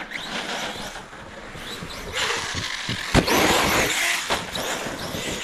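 Kraton XL electric RC truck driving through wet snow: a rushing noise that swells loud about two seconds in and holds for a couple of seconds, with one sharp knock in the middle of it.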